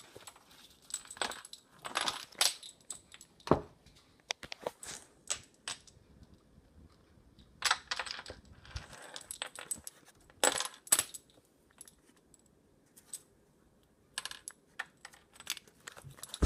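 Window blinds rattling and clinking in short, irregular bursts as a kitten tugs at the blind cord, with quiet gaps between the clatters.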